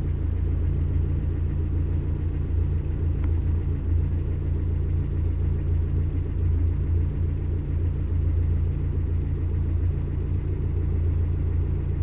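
A steady low rumble that holds without change.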